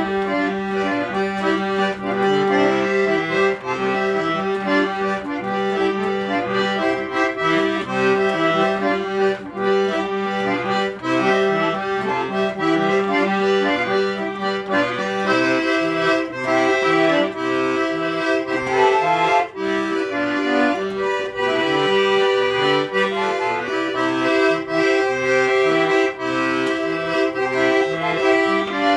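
Accordion (sanfona) playing a tune: a melody of held, reedy notes over a steady, rhythmic pattern of bass notes.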